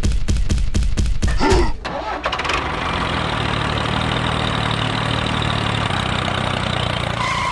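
Tractor engine sound effect: cranking in quick even strokes, about five a second, catching about two seconds in, then running steadily.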